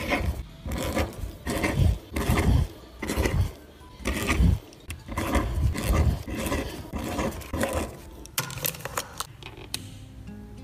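Fountain pen nib scratching across paper while writing cursive, in a run of short strokes with brief pauses between them. The strokes give way to a few light ticks near the end.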